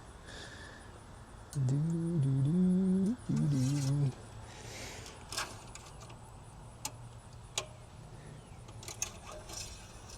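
A man humming a short tune of a few held notes for about two and a half seconds, followed by scattered light clicks and taps.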